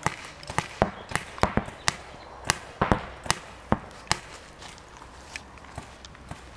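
Paintball markers firing: sharp, irregular pops, several a second in the first few seconds, thinning out and growing fainter in the second half.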